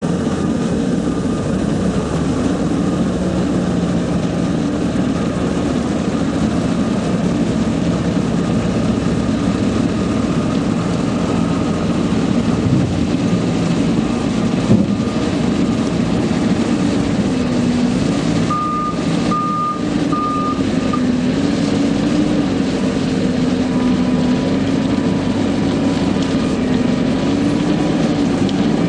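Diesel engine of an EP3.5 self-loading concrete mixer truck running steadily, its revs rising and falling a little. Three short warning beeps sound about two-thirds of the way through.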